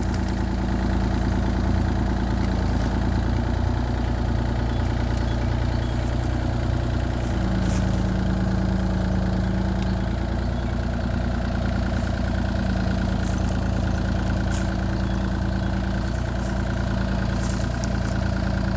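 Diesel engine of a Kubota KX033-4 compact excavator running steadily, with a low hum that swells and fades several times. A few faint clicks sound over it.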